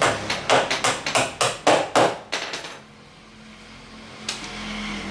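A rapid run of about a dozen sharp knocks, roughly four a second, stopping about three seconds in.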